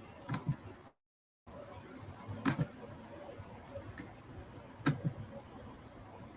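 Computer mouse clicking: a handful of short clicks, several in quick pairs, spread over a few seconds above faint room noise. The sound drops out completely for about half a second around a second in.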